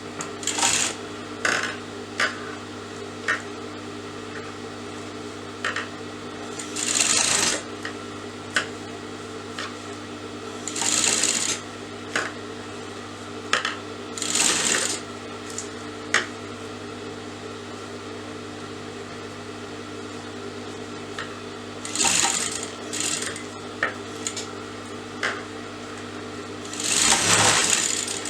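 Electric sewing machine stitching in several short runs of about a second each, the last the longest, with small clicks in between over a steady hum. This is bias tape being sewn onto a blouse neckline.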